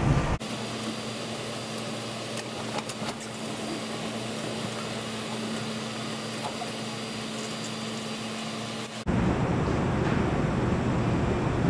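Steady hum of a commuter train car's ventilation heard from inside the car, with a low drone. About nine seconds in it cuts off abruptly to a louder, even rushing noise.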